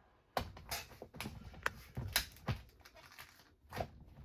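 Irregular clicks and taps of small plastic and metal model-kit parts being handled and set down.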